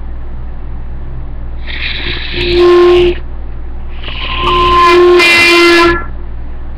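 Beginner blowing a clarinet: two tries at one note, meant to be a G, each starting with breathy air before the reed sounds. The first note is short; the second is longer, and a shrill squeak breaks out over it partway through.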